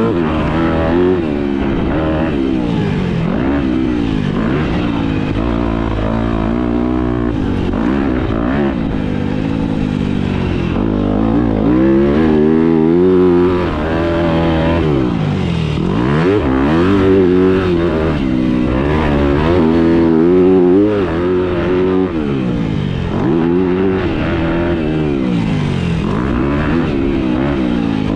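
Yamaha YZ250F dirt bike's four-stroke single-cylinder engine revving up and dropping back over and over under hard acceleration and braking.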